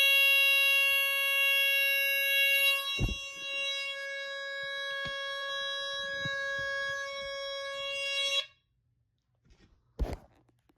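Sunbeam Centurion 45-21 smoke detector's alarm horn sounding one steady, very loud tone, set off by canned test smoke. The tone gets quieter after a thump about three seconds in, then cuts off suddenly near the end, followed by another short thump.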